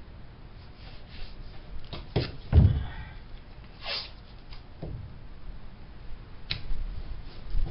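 A few scattered knocks and thumps, the loudest about two and a half seconds in, with a short hiss about four seconds in and a sharp click near the end.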